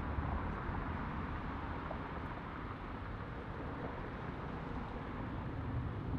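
Boeing 767-300ER's twin jet engines at takeoff power, heard from a distance as a steady low rumble with hiss as the airliner begins its takeoff roll.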